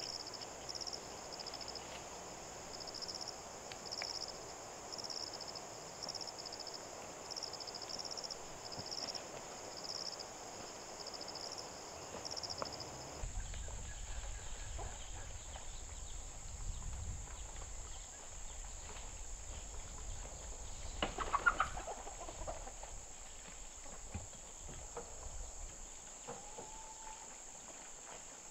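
Insects shrilling steadily, with a pulsing chirp over them in the first half. After an abrupt change partway through, a chicken calls loudly once a little past the middle.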